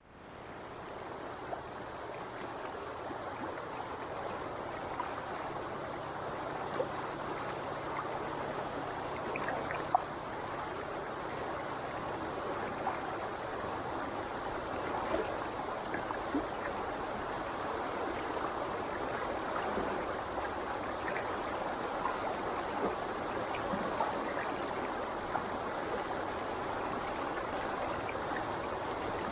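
A small river flowing steadily, water rushing and gurgling with frequent small splashes and plinks. It fades in over the first second.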